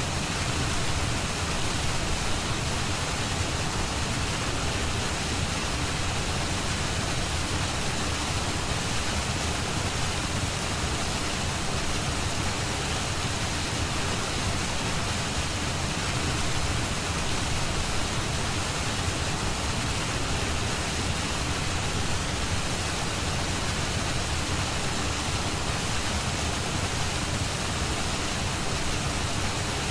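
Steady, even rushing noise like pink noise or a heavy rain bed, unchanging throughout: the masking background of a subliminal audio track.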